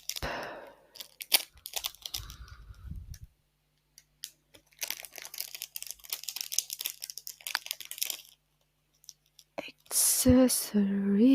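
Packaging being torn open and crinkled by hand, in two spells of irregular crackling, the longer one in the middle. Near the end a short hummed voice with a rising pitch.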